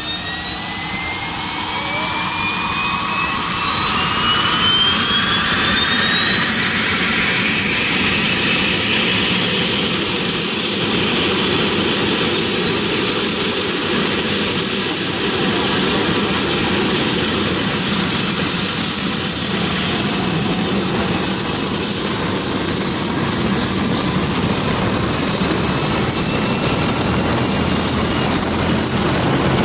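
Bell 412 helicopter's twin PT6T turboshaft engines spooling up on the ground as the rotors wind up to speed. A turbine whine climbs steadily in pitch for the first eighteen seconds or so, then holds steady over a loud, even rush, the whole sound growing louder in the first few seconds.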